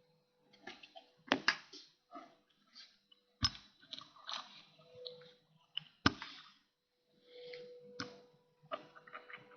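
Small clicks and light taps of watchmaker's tools handling a wristwatch movement, with four sharper taps spread through and a faint steady hum underneath.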